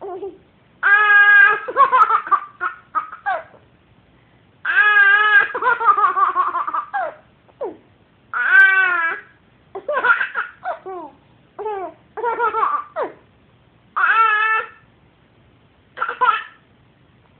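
A baby making high-pitched squealing noises and laughing in repeated outbursts, some drawn out for about a second, others short and choppy, with brief pauses between.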